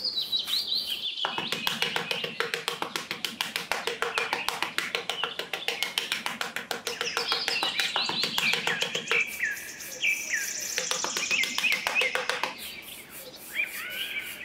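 Birds chirping and singing, over a quick, dense run of scratchy strokes from a small hand trowel scraping and spreading sand.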